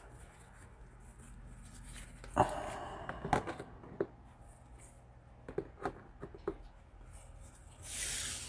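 Trading cards in rigid plastic holders being handled, set down and stood up on a table: a scattered run of light plastic clicks and taps, the loudest about two and a half seconds in, with a soft rustle near the end.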